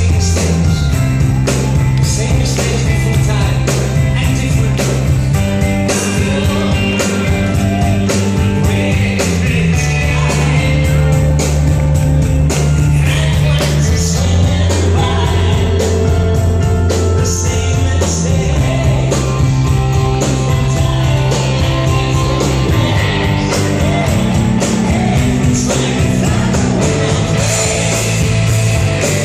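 Rock band playing live: sustained bass notes that shift every few seconds under steady drums and guitars, with singing.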